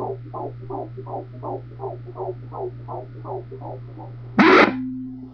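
Fetal heartbeat through a handheld fetal doppler's speaker: rapid rhythmic whooshing pulses, about 157 beats per minute, a normal rate, over a steady electronic hum. Near the end the beats stop and a brief, loud crackle follows, then a low steady tone.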